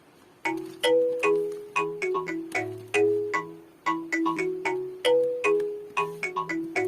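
Background music: a bouncy melody of short bell-like notes over a simple bass line, picking up again after a brief pause about half a second in.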